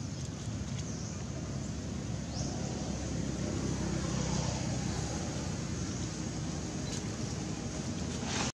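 Steady outdoor background rumble and hiss, slightly louder in the middle, with no clear animal calls; it drops out abruptly at the very end.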